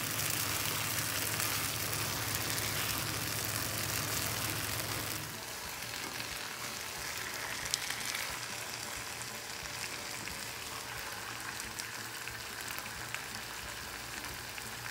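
Food sizzling in a pan as it is stirred with a spatula: first tapioca cooking in thick coconut milk, then, after a sudden change about five seconds in, a quieter sizzle of spiced chicken being stirred in a kadai. A single sharp click near the middle.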